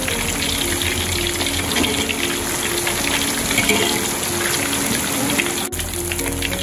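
Battered pineapple slices deep-frying in hot oil in a wok: a steady, even sizzle of bubbling oil.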